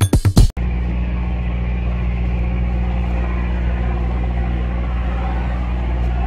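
A fishing boat's engine running steadily under way, heard from on deck: an even, low drone. It starts when a burst of electronic dance music with a drum-machine beat cuts off about half a second in.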